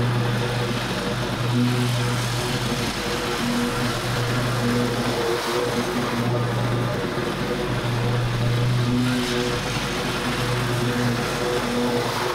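Petrol engine of a commercial walk-behind lawn mower running steadily while cutting tall, overgrown grass, its hum swelling and dipping every few seconds.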